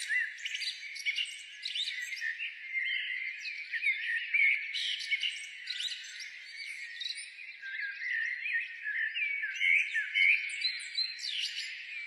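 Birds chirping and singing in a busy, overlapping chorus: a steady stream of quick high chirps and short whistled glides.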